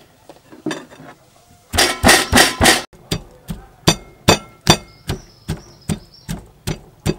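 Stone pestle pounding in a granite mortar, crushing red chilies, in steady strikes about two and a half a second. The first few strikes, starting a couple of seconds in, are the loudest.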